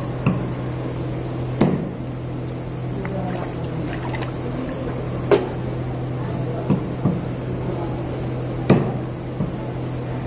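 Large knife chopping through a rohu fish into a wooden chopping block: about seven sharp, irregular chops, over a steady low hum.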